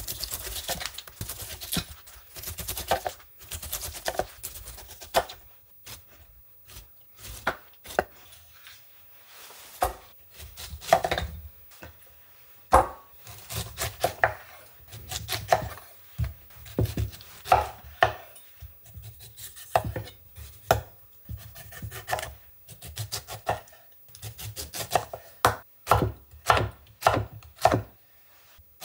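Broad cleaver-style knife cutting a pineapple on a wooden cutting board: rasping strokes through the rind at first, then separate sharp knocks of the blade on the board as the peeled fruit is cut, coming in quick runs near the end.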